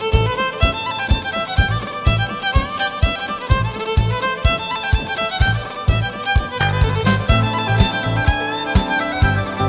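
Instrumental background music: a bowed string melody over a quick, steady drum beat with low thumps.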